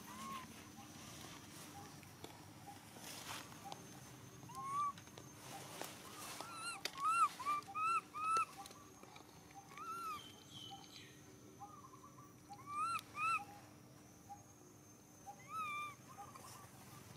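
Baby macaque giving short, high squeaks that rise and fall, one at a time at first, then in a quick run of several a few seconds in, and in pairs later on.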